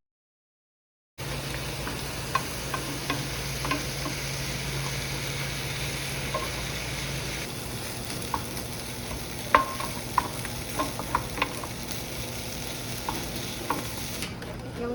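After about a second of silence, a steady hiss with a low hum beneath it and scattered light clicks and taps, the sharpest about nine and a half seconds in.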